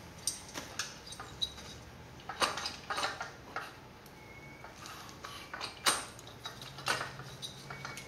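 Metal engine parts clinking and tapping as they are handled, in a scattered series of sharp, irregular knocks.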